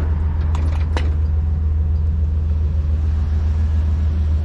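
Tow truck's engine idling steadily with a low hum, with two short metallic clicks about a second in.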